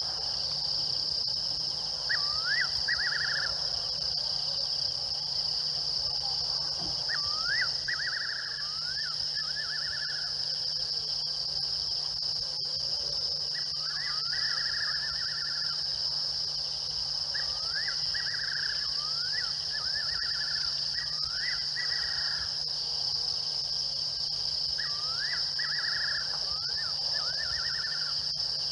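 Night chorus of insects, a steady high-pitched shrilling. About half a dozen times an unseen animal calls over it with a few rising whistled notes that run into a quick trill.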